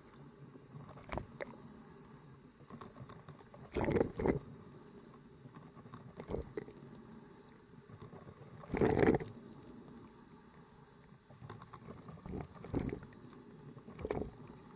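Old coffee machine brewing, gurgling in irregular bursts over a low steady bubbling, with two stronger gushes about four and nine seconds in.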